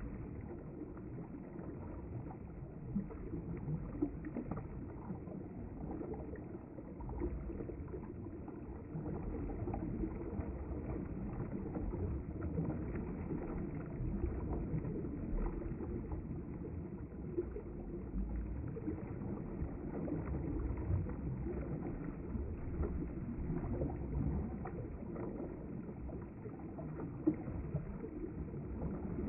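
River water flowing and lapping at the bank: a steady low rush with a few faint ticks.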